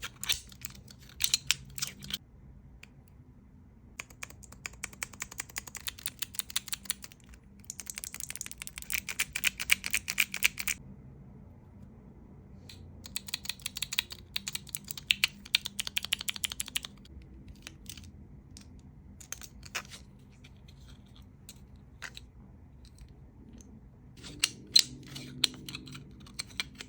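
Keycap fidget toy clicking: its mechanical key switches are pressed in rapid runs of sharp clicks a few seconds long, with pauses and a few single clicks between the runs.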